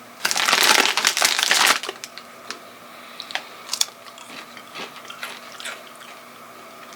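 Bag of protein chips crinkling loudly for about a second and a half, followed by scattered faint crunches and clicks.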